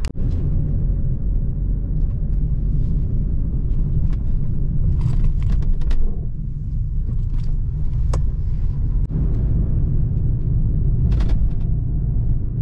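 Car on the move in traffic, heard from inside the cabin: a steady low road and engine rumble, with a few brief sharp clicks.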